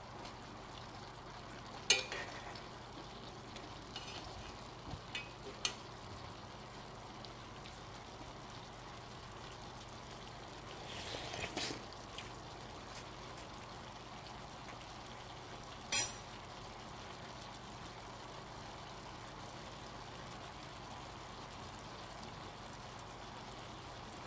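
Steady background hiss with a faint low hum, broken by a few light clicks and knocks. There is a brief cluster of them about halfway through and one sharp, loud click about two thirds of the way in.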